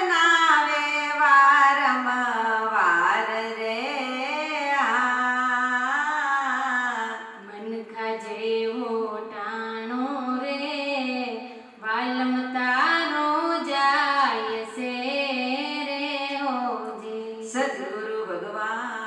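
Women singing a Gujarati devotional bhajan into handheld microphones, a slow melody with long held notes that bend in pitch.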